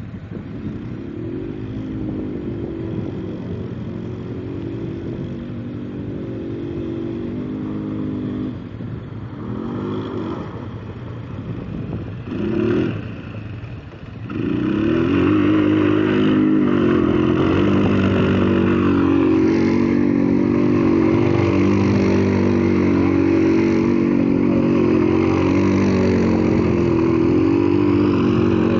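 ATV engine running and revving, with a couple of quick blips of the throttle about a third of the way in. Just before halfway it grows louder and runs hard, its pitch rising and falling as the machine accelerates and eases off.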